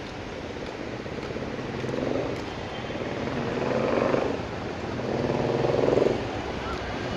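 Steady city road traffic noise, with engines swelling louder as vehicles pass about two, four and six seconds in.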